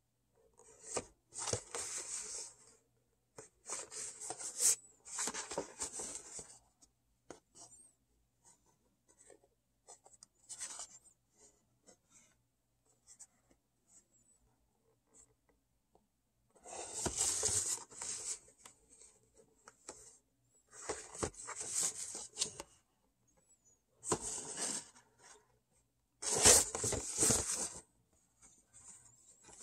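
Fingers rubbing and scraping over a Funko Pop window box of cardboard and clear plastic as it is handled and turned, in about seven short scratchy bursts with quiet gaps between.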